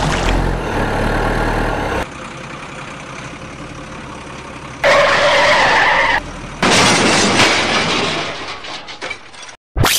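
Vehicle sound effects laid over toy trucks driving in mud. An engine runs with splashing at first and cuts off about two seconds in, leaving a quieter noise. About five seconds in a loud blaring tone lasts a second and a half, then a loud rushing noise fades out near the end.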